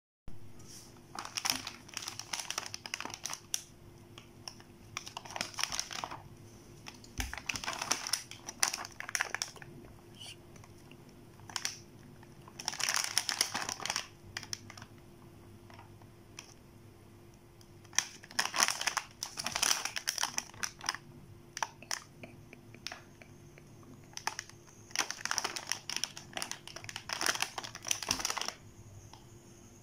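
Plastic food packets crinkling as they are handled, picked up and turned over, in about six bouts of a second or two with quiet gaps between.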